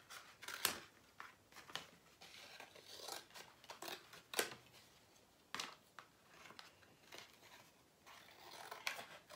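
Scissors cutting thin cardboard from a package box: a series of sharp, irregularly spaced snips with faint rustling of the box between them.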